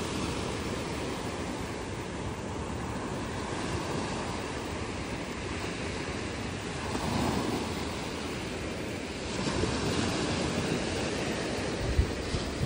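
Small waves breaking and washing up the sand, swelling a couple of times, with wind rumbling on the microphone. A few low thumps near the end.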